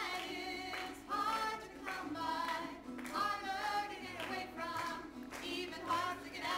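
Two women singing a song together into a microphone, holding sung notes with no break.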